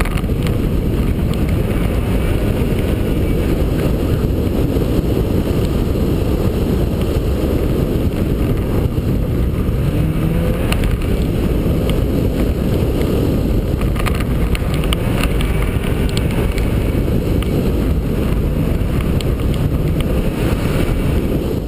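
Subaru Impreza rally car driving on gravel: its flat-four engine and the tyres on the loose surface make a steady, dense rumble, with faint rising engine notes around the middle.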